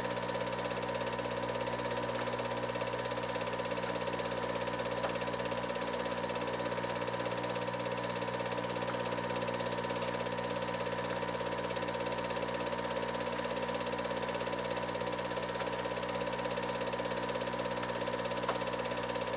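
Film projector running: a steady whir with a fast, even clatter from its film-advance mechanism.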